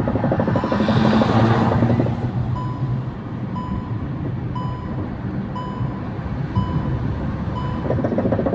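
Car in motion with a rapid, continuous knocking from the left front wheel, whose hub nuts have been loosened. A short beep repeats about once a second throughout.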